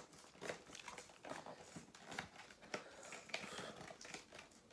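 Faint, irregular crackling and crinkling as the glue-sealed cardboard of a trading card collection box is carefully picked open by hand.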